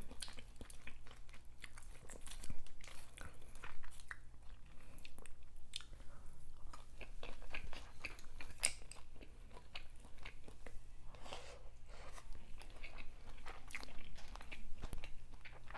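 Close-miked eating sounds: a person chewing seafood, with irregular wet smacks and clicks of the mouth.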